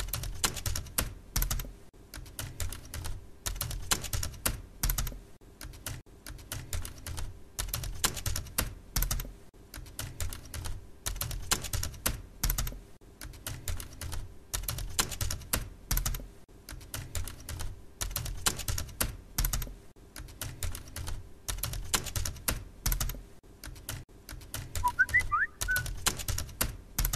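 Typing on a computer keyboard: rapid, irregular key clicks in runs, with short pauses between the runs.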